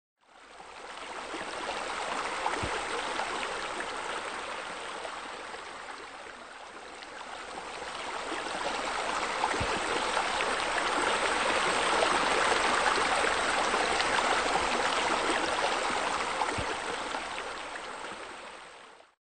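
Running water, like a stream, fading in, dipping slightly about a third of the way through, then swelling and fading out at the end.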